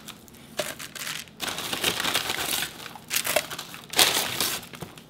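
Paper crinkling and rustling in several short, irregular bursts: a brown paper bag and parchment paper handled as sugar-coated doughnuts are taken out and set down.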